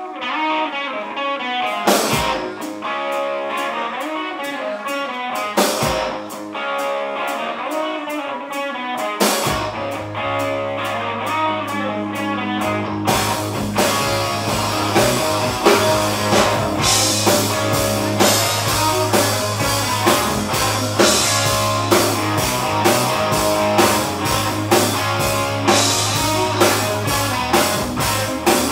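Live rock band playing loudly: electric guitar plays a riff alone, punctuated by two hard drum-and-cymbal hits about two and six seconds in. Bass guitar comes in around a third of the way through, and the full drum kit joins soon after with a steady rock beat for the rest of the passage.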